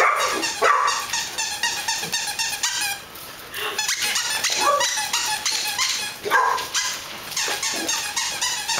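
Young Xoloitzcuintli puppies barking and yipping in play, short calls coming in bunches over a rapid clatter of quick clicks, with a lull about three seconds in.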